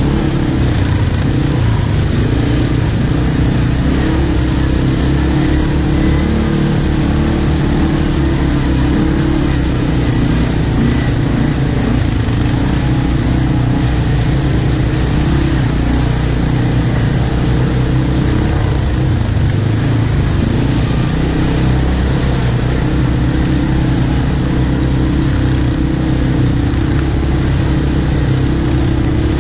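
ATV (quad bike) engine running under way, loud and steady, its pitch shifting a little as the throttle changes.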